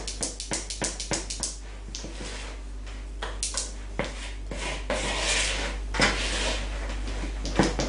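Cupcake batter being stirred by hand with a spatula in a mixing bowl. Quick strokes come first, about four a second, then slower scraping strokes around the bowl, with a sharp knock near the end.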